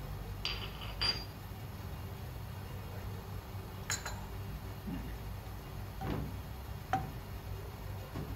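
Kitchen utensils clinking and tapping: a handful of separate light clinks and knocks, two of them close together about half a second and a second in, the second with a short ring, over a low steady hum.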